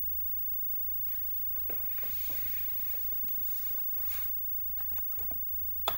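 Steady low hum from the running Amiga 3000 setup, with a soft rustling for about three seconds from a second in, then a few light clicks and one sharp click just before the end.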